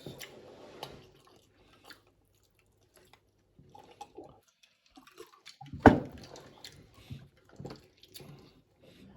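Wet mouth sounds of noodles being eaten, slurping and chewing, with scattered small clicks and one sharp knock about six seconds in.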